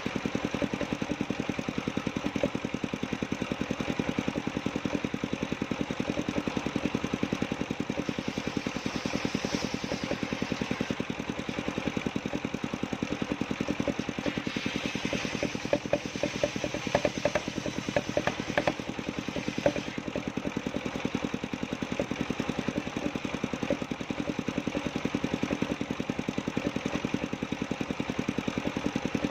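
Engine of a circular sawmill running steadily with a fast, even firing beat. For a few seconds around the middle a harsher hiss with scattered sharp clicks rises over it.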